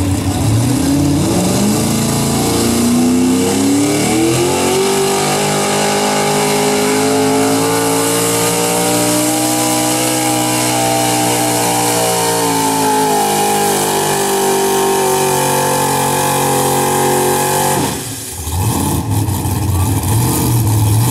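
Pickup truck's engine at full throttle pulling a weight sled: the revs climb over the first few seconds, then hold high under load, the pitch slowly rising and sagging. About 18 seconds in the throttle shuts and the engine drops to a low idle.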